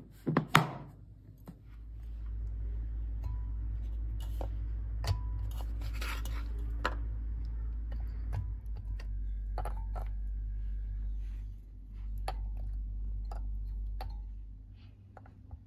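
A hand patting a plastic bowl lid twice near the start, then soft taps and clicks as tomato slices, garlic cloves and crumbled stock cube pieces are dropped into a glass food-chopper bowl, over a steady low hum that dips briefly near the end.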